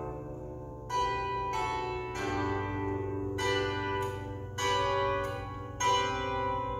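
Bandura played solo: a slow run of plucked chords and notes, each struck sharply and left to ring on over sustained low bass strings.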